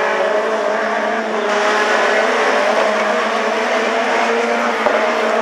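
Several rallycross cars racing together, their engine notes overlapping and wavering in pitch as they drive through the corners.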